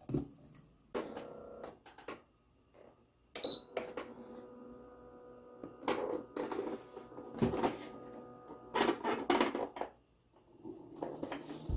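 Bokuk portable air cooler being switched on and tested: clicks and knocks as it is handled and its buttons are pressed, a short high beep from the control panel, and a steady hum from the unit running for a few seconds that stops suddenly about nine seconds in.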